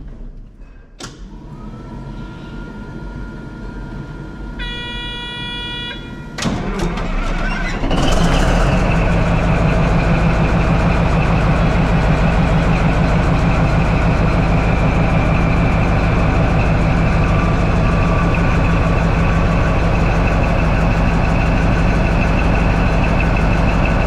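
Caterpillar D11 bulldozer's diesel engine being started: a steady tone and a short horn blast, then the starter cranks about six seconds in and the engine catches about two seconds later and runs steadily and loudly.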